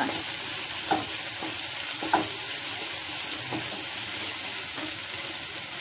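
Diced potatoes, tomato and onion sizzling in a non-stick frying pan while being stirred with a spatula. The steady sizzle is broken by a few short scrapes of the spatula against the pan.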